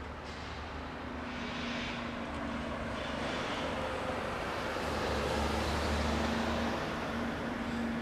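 Street traffic: a steady hum of road vehicles with an engine drone, swelling as a vehicle passes close about five to six seconds in.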